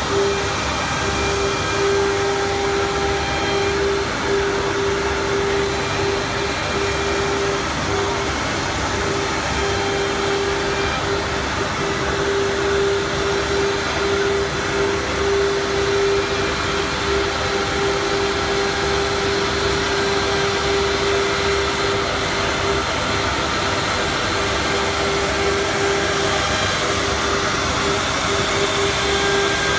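SGMNC automatic-loading CNC wood router running while cutting a panel: a steady whining tone over a constant rushing noise of motors and dust extraction.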